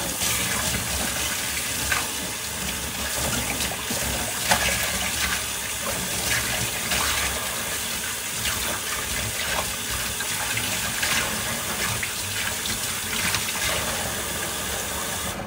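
Kitchen tap running steadily into a sink while something is rinsed by hand under it, with a few light knocks; the water shuts off abruptly at the end.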